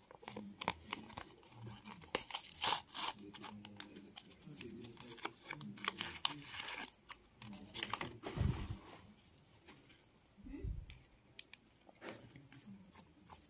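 A foil wet-wipe sachet being torn open and worked in the fingers: a run of sharp tearing and crinkling crackles, loudest a few seconds in.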